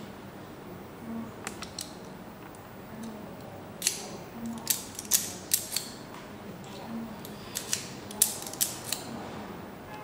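Sharp metallic clicks and rattles of a freshly cut Honda laser key and a car lock cylinder being handled as the key is tried, coming in two clusters, around the middle and near the end.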